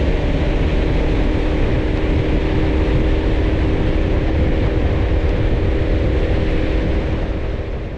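Boat's motor running steadily under way, with several steady engine tones under a heavy rush of wind and water, fading out near the end.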